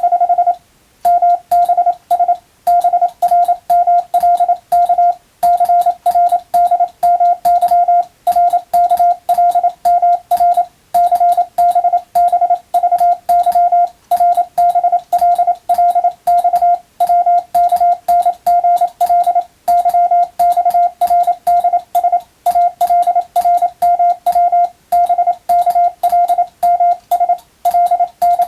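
Hand-keyed Morse code (CW) tone sending practice telegram text in the Latin alphabet: an unbroken run of short and long beeps at one steady pitch, with brief pauses between words every two to three seconds.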